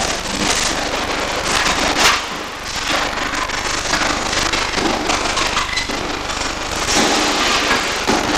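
Electric arc welding: a steady crackling and sputtering of the arc, with many small pops.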